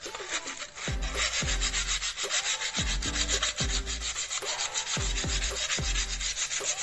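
Sandpaper rubbed quickly back and forth by hand on the aluminium flange of a gate-opener motor housing, sanding it down so the housing halves clamp the loose bearing tighter. Background music with a low beat runs under it.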